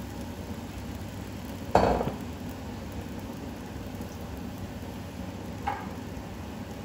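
Greens frying in a pan with a low, steady sizzle for a thoran. About two seconds in a cooking utensil strikes the pan with a sharp clank that rings briefly, and a lighter tap comes near the end.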